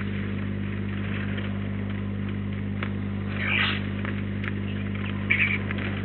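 Steady electrical mains hum on the feeder camera's audio, with two brief bird calls, about three and a half and five seconds in.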